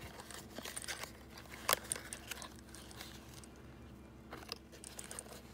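Cardboard box of 7.62x39 rifle cartridges being opened and handled: soft scuffing and rustling of the cardboard with a few light clicks, the sharpest a little under two seconds in.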